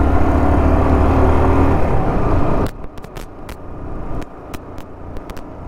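Motorcycle engine and rushing air while riding, a steady low hum. About two and a half seconds in it drops sharply to a much quieter hum, with a scatter of sharp clicks over it.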